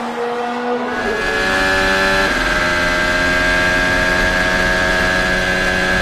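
Formula 1 car's Honda 1.6-litre turbocharged V6 heard onboard, running at high revs under power, with a gear change about two seconds in, after which it holds a steady high note.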